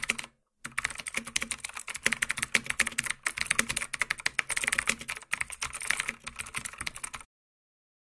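Rapid computer-keyboard typing: a quick, uneven run of key clicks with a brief pause just after the start, cutting off abruptly about seven seconds in.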